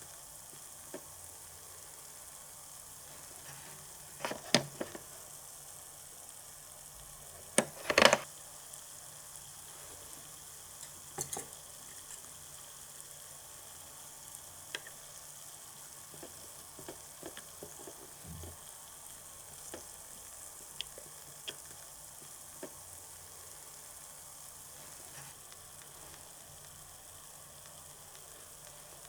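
Steady frying sizzle sound effect, a continuous high hiss, with scattered sharp clicks and taps, the loudest about four seconds in and again about eight seconds in.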